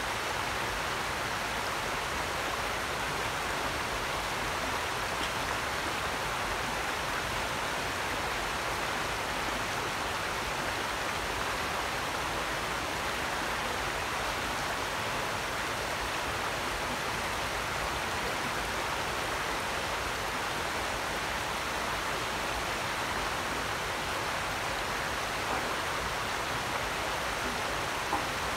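Shallow, rocky creek running over and around stones: a steady, unbroken wash of flowing water.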